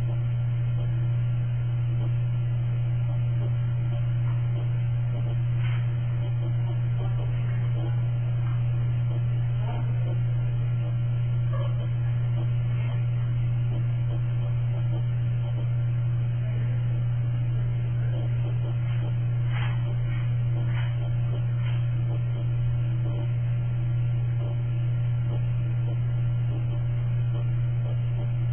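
Steady, loud low electrical hum with no change throughout, with a few faint short sounds scattered over it.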